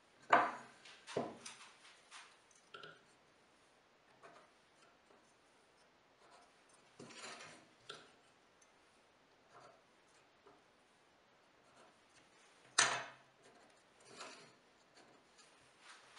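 Pine boards and a small wooden marking gauge being set down, knocked and slid across a wooden workbench: scattered light knocks, the sharpest just after the start and again about 13 seconds in, with a scraping slide around the middle.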